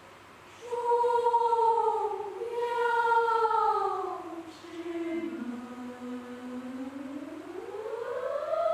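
Mixed choir singing a cappella in a modern choral style. After a brief hush, the voices come in together on held notes that slide downward, drop low, then glide slowly upward into a held chord near the end.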